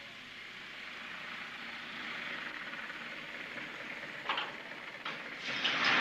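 Vehicle noise: a steady hissing rush that swells louder near the end, with a sharp knock about four seconds in.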